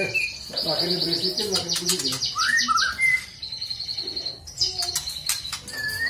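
White-rumped shama (murai batu) singing in its aviary. Its song mixes fast, high trilled runs of repeated notes with short whistled notes that slur up and down, in several phrases.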